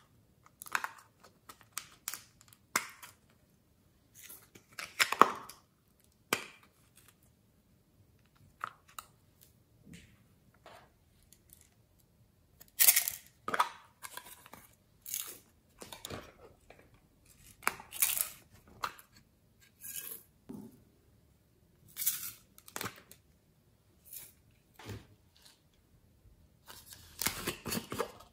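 Small plastic containers being handled and opened by hand: lids clicking and snapping open and plastic rustling, in a run of short, sharp noises with a few longer scraping ones.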